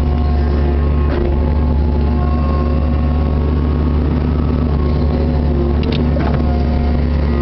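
Kubota KX61-3 mini excavator's diesel engine running steadily under working load, with a thin hydraulic whine that comes and goes as the boom and bucket are moved. Brief knocks sound about a second in and again near the end.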